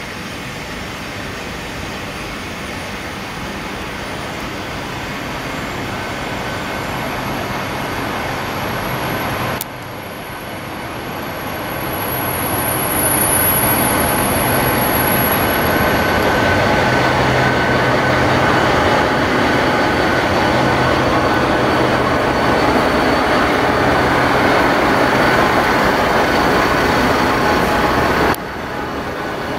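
Infranord MZ-class diesel locomotive with its EMD two-stroke diesel engine hauling a timber train in slowly, the engine's steady hum growing louder as it nears and passes close by. The sound breaks off abruptly about ten seconds in and again near the end.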